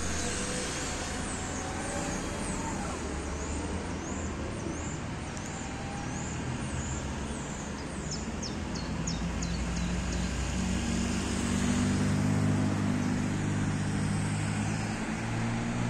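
City bus approaching, its engine growing louder over the last few seconds. A small bird sings a run of high chirping notes through the first half.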